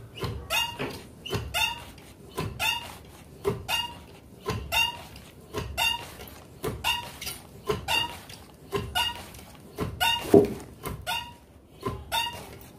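Wooden dheki, the foot-operated rice-pounding lever, pounding soaked rice into flour: each stroke gives a squeak from the beam's pivot and a knock of the pestle, about once a second in a steady rhythm. The strongest stroke comes near the end.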